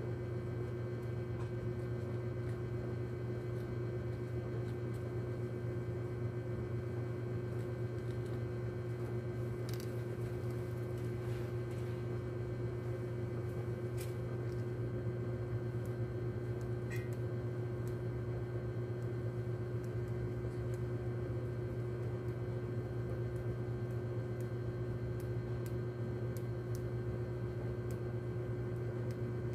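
Steady low mechanical hum, unchanging throughout, with a few faint clicks near the middle.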